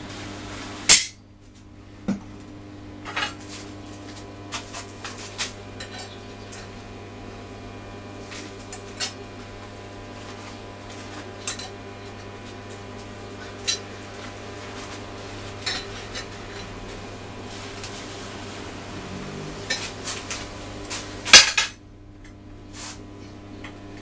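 Small steel parts clinking and knocking on a steel bench plate as they are handled, with two loud clanks about a second in and near the end and scattered lighter clicks between, over a steady low hum.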